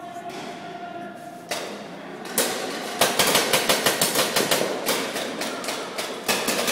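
Paintball markers firing: a single pop about two and a half seconds in, then a rapid string of pops at about six a second for some two seconds, and another short burst near the end.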